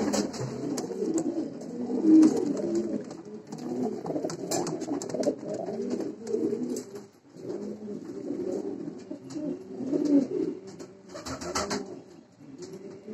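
Several domestic pigeons cooing in a small enclosed coop, their coos overlapping almost without a break, with a short lull about seven seconds in. A brief rustle comes about eleven seconds in.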